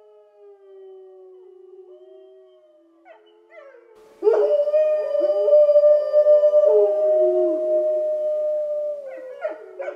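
Several canines howling together: long, drawn-out howls at different pitches overlapping and sliding up and down. A louder chorus of howls comes in about four seconds in and dies down near the end.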